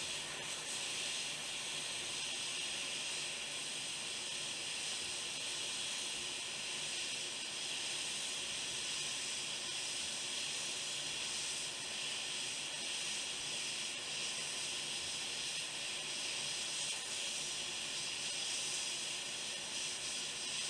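Hot air rework station blowing a steady, high hiss as it reflows a chip on a laptop screen's circuit board.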